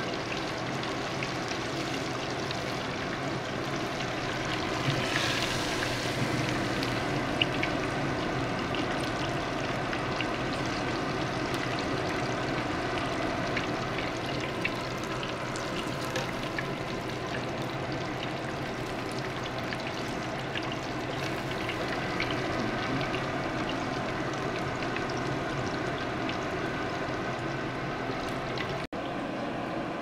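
Pieces of mackerel deep-frying in hot oil in a stainless steel pot: a steady sizzle with scattered small crackles and pops.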